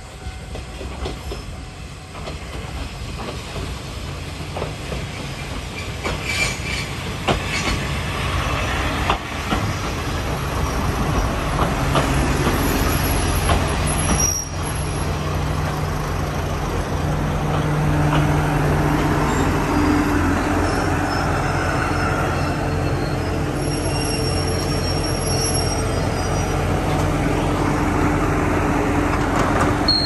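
KiHa 200 diesel railcar pulling into a station: it grows louder as it approaches, with clicks over the rail joints and brief wheel and brake squeals. In the second half its diesel engine runs with a steady low hum as it stands.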